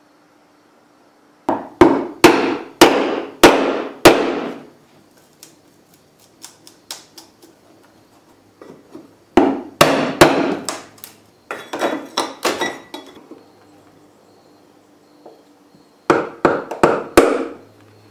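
Claw hammer striking a steel chisel set into a wooden window jamb, prying the parting strip out of its groove. Three bursts of sharp blows, each ringing briefly: about six strokes in the first, a quicker run of blows in the middle, and five more near the end.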